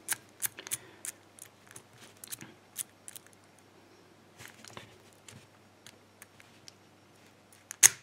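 Number wheels of a TESA four-wheel combination padlock rolled by thumb, giving a run of small metallic clicks as they turn from number to number. The clicks come thickly in the first few seconds, then in a short cluster, then only now and then, with one louder click near the end.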